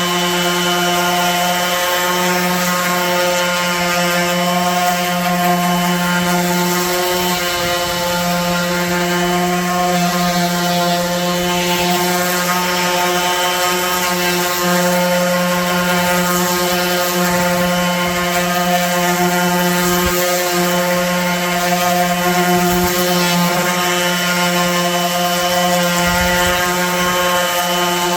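Electric orbital sander running steadily as it rough-sands the wooden table boards: a continuous, even motor hum.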